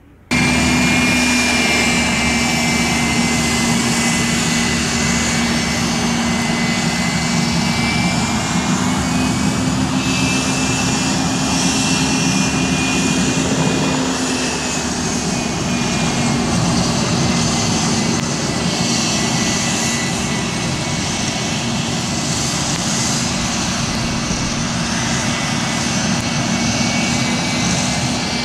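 Bombardier Challenger business jet's twin turbofan engines running at taxi power: a loud, steady rush with a high whine that drifts slowly up and down in pitch, and a low steady hum underneath. The sound starts abruptly just after the start.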